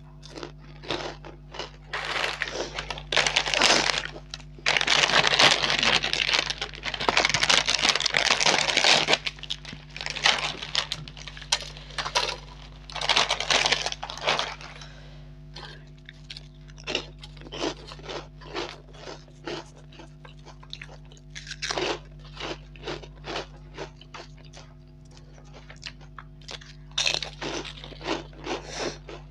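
Plastic snack packet crinkling loudly in long stretches as it is handled and the crisp fried snacks are poured out onto a plate. In the second half this gives way to scattered light crackles and clicks as the crisp pieces are handled.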